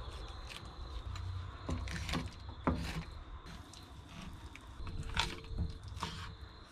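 Knife slicing a skipjack tuna fillet on a wooden cutting board, with several sharp taps and knocks of the blade and fish against the board over a low rumble.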